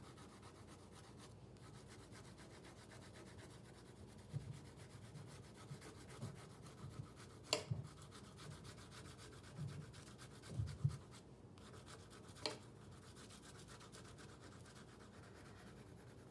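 Side of a green colored pencil shading across paper: faint, steady rubbing of even strokes, with two small sharp knocks partway through.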